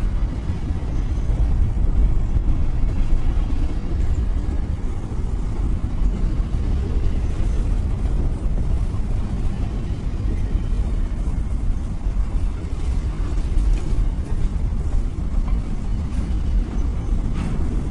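Diesel locomotive running with a steady, deep low rumble that holds an even level throughout.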